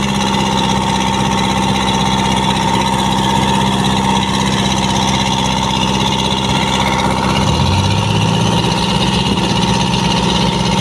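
Fishing boat's engine running steadily, its note shifting to a different pitch about three-quarters of the way through.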